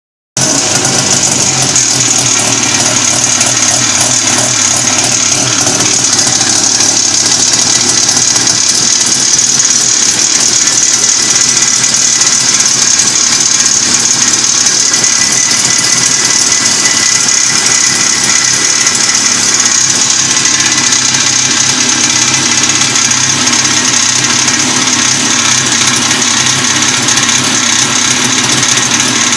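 RMZ-500 two-cylinder two-stroke snowmobile engine running steadily, carrying an extraneous noise that the owner is concerned about.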